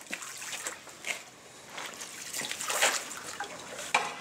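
Water splashing and trickling in irregular bursts, loudest near three seconds in, with a sharp knock just before the end.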